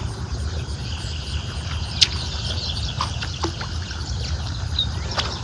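Outdoor ambience: wind rumbling on the microphone, with small birds chirping faintly and one sharp click about two seconds in.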